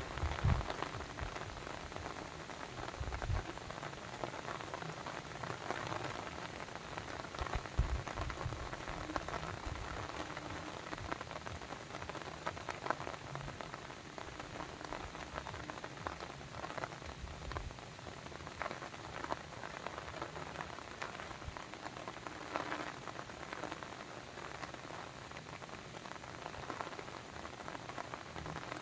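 Steady pattering of falling or splashing water: a dense hiss with many small drop-like ticks, and a few low thumps in the first eight seconds or so.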